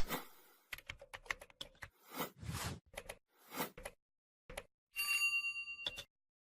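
A run of sharp clicks and short swishes, then a bell-like chime about five seconds in that rings for about a second.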